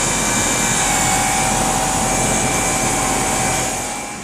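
Carrier Weathermaker packaged rooftop HVAC unit running, its fans making a steady loud rush with a faint high whine, the blower now driven by a new belt. The sound drops in level near the end.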